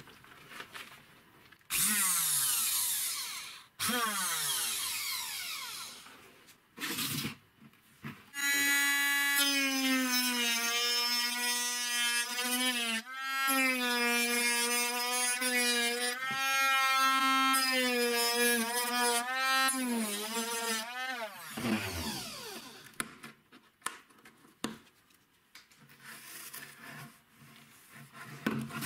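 Homemade rotary tool made from an old blender motor, with a small cutting disc in a drill chuck. It spins up and winds down in two short runs, then runs with a steady whine while the disc cuts a tube, its pitch dipping each time it bites under load, and winds down about two-thirds of the way through.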